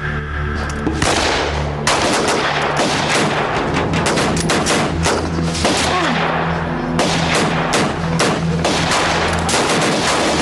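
Rifle gunfire in a skirmish: many rapid, overlapping shots begin about a second in and keep coming, over steady background music.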